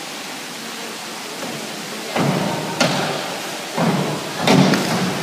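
Synchronized divers on 3 m springboards: the boards thud and rattle under their hurdle and takeoff, then a loud splash as they enter the water, over a steady hiss of pool-hall noise.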